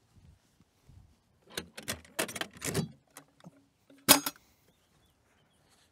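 Metal ammunition can being unlatched and its lid pulled off: a run of metallic clicks and rattles, then one sharp clank a little after four seconds.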